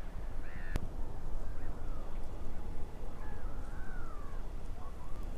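Crows cawing, a few arched calls, loudest in the first second and fainter after, over a low wind rumble. One sharp click about three quarters of a second in.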